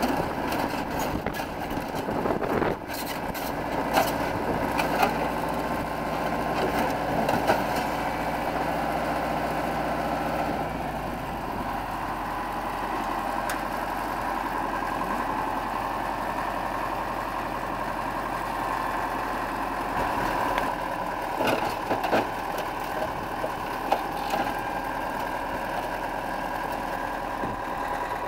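Tracked loader's diesel engine running, with sharp metal crunches and bangs in the first several seconds as its bucket presses down on a junked car. About eleven seconds in the engine settles to a lower, steady idle, with a few more clanks a little past the middle.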